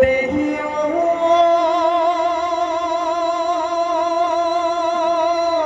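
Husori Bihu music: a single long held note, wavering steadily, that steps up in pitch about a second in and is held to the end.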